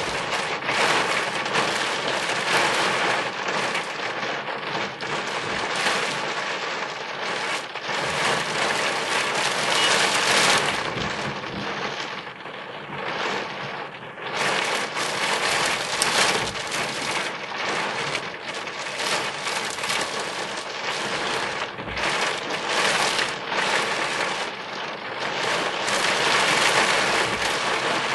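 Heavy rain falling on a car's roof and windscreen, heard from inside the car as a dense, crackling patter that swells and eases.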